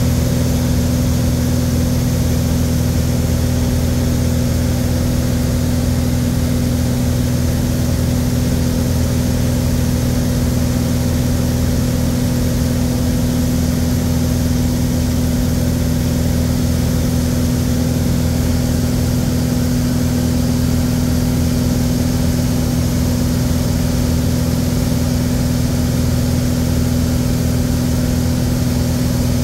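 Piston engine and propeller of a light single-engine plane running at a steady cruise drone, heard inside the cabin, with a constant low hum and a steady tone that never change.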